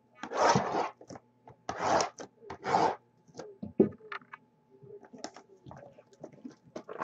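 Cardboard trading-card boxes being handled and opened by hand. There are three short scratchy noises of about half a second each in the first three seconds, then a sharp click, then light rustles and taps.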